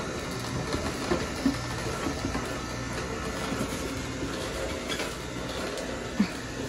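Nama slow juicer running, its auger crushing apple pieces: a steady motor hum with a few short squeaks, the loudest near the end.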